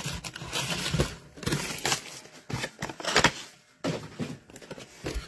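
Foil trading-card packs crinkling and rustling as they are handled and pushed into a row in a cardboard box, with irregular cardboard scrapes and taps.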